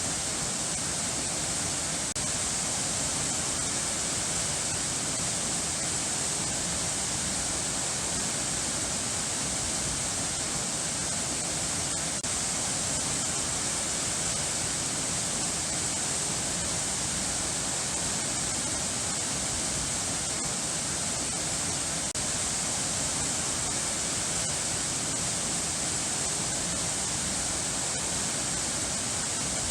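Running water rushing steadily, a continuous even hiss with no change in level.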